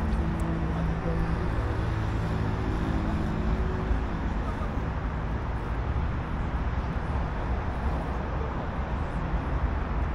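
Steady outdoor road-traffic noise, with a low engine hum that fades out about four seconds in.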